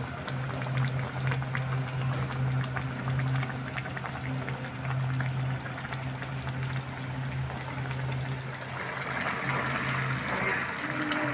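Prawn and taro-stolon curry boiling in a pan on a gas stove: a thick, bubbling, popping crackle over a steady low hum. The bubbling grows more vigorous about nine seconds in.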